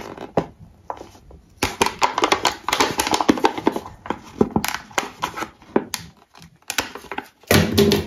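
Steel scissors snipping and crunching through a thin plastic cup to make drainage holes: a run of short, sharp clicks and crackles, with a louder knock near the end as the scissors are put down.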